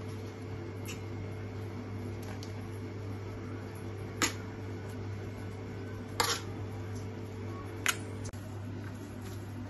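A steady low hum, with four sharp clicks of a stainless steel plate being handled as chhena and cornflour are mixed and kneaded in it, the loudest about six seconds in.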